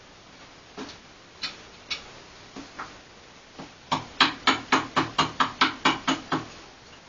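Knife cutting into a wooden spoon blank: a few scattered sharp cuts, then a quick run of about ten strokes, about four a second, in the second half.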